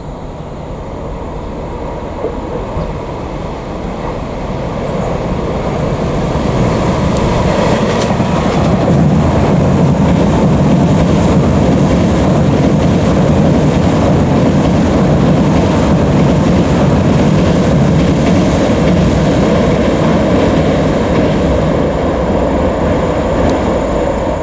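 Tobu 50070 series electric train passing over a steel railway bridge: rumbling wheel and rail noise with some clickety-clack that builds over the first few seconds, stays loud through most of the pass and eases slightly near the end.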